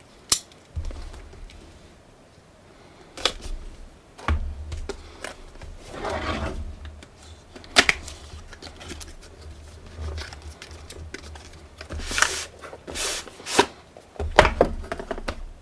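Cardboard keyboard box being handled and its outer sleeve slid off: scattered taps and knocks, with longer scraping swishes of cardboard sliding about six seconds in and again around twelve to thirteen seconds.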